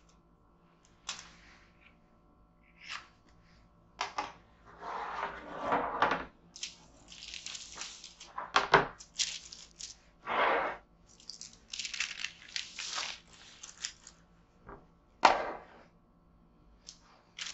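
Close-up rustling and crinkling of baking paper as sheets carrying shaped bread dough are slid and lifted over a wooden board, broken by a few sharp knocks, the loudest about a third of the way in and again near the end.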